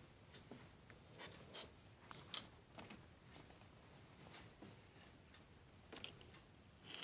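Near silence with a few faint, scattered clicks and taps, the sharpest about two and a half seconds in: a small plastic toy figure being handled and set down on a laminated desk mat.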